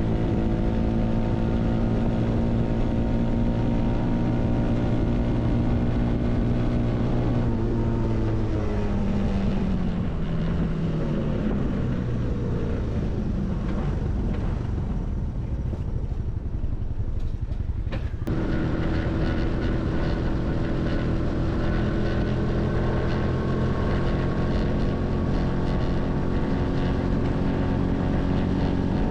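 Honda Hunter Cub's small single-cylinder four-stroke engine running under way, with wind noise. The engine note drops as it slows about a third of the way in and stays low and rough for a while. After a sudden cut it is back at a steady cruising pitch.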